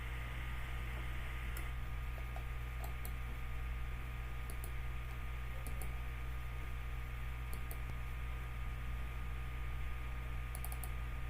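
A steady low hum with a handful of faint, scattered clicks, some in quick pairs and a short cluster near the end.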